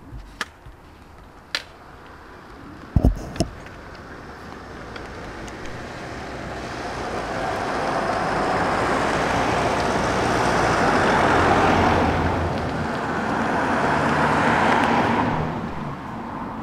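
A road vehicle passing: tyre and engine noise swells over several seconds, stays loud for a while and fades away near the end. Early on there are a few light clicks and two sharp knocks about three seconds in.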